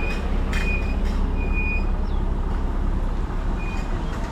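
Street noise: a steady low traffic rumble, with a few short, high-pitched tones scattered through it.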